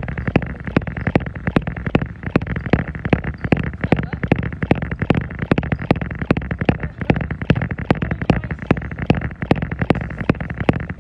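Footfalls of a jogger landing on a treadmill deck, an even beat of about three steps a second, over the treadmill's steady running noise.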